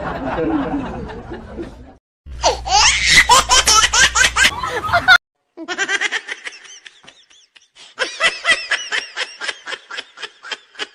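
Human laughter in quick, rhythmic, high-pitched bursts, breaking off abruptly twice.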